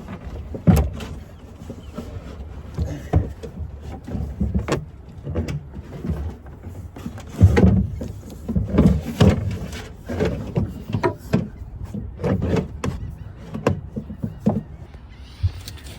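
Irregular knocks, clunks and rustling from hands working a fuel line and gas tank fitting into a boat compartment, with a louder thump about seven and a half seconds in.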